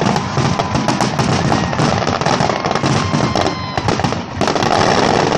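Aerial fireworks display: a rapid barrage of overlapping bangs and crackling from bursting shells, with a few thin whistling tones through it and a brief lull about four seconds in.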